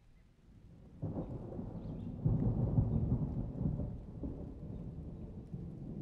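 A low rumble that comes up sharply about a second in, is loudest between two and three and a half seconds, then slowly fades.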